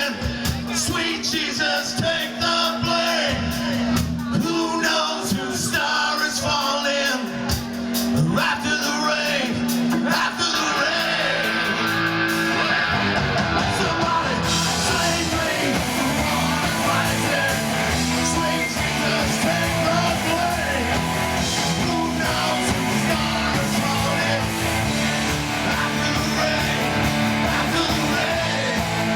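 Rock music: a band with electric guitar and a singing voice. The sound fills out in the low end about ten seconds in and grows fuller again from about fourteen seconds.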